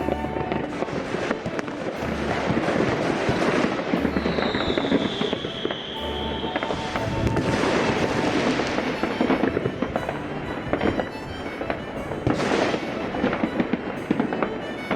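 Fireworks going off continuously, with dense crackling and many sharp bangs. A whistle that falls slightly in pitch comes in about four seconds in and lasts about two seconds.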